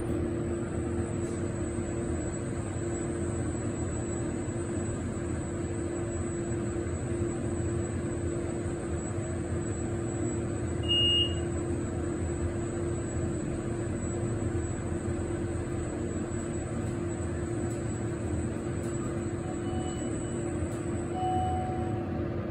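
Inside a KONE MonoSpace elevator cab: a steady hum and rush from the cab fan and the car in travel. A short high beep sounds about halfway through as the car reaches the third floor.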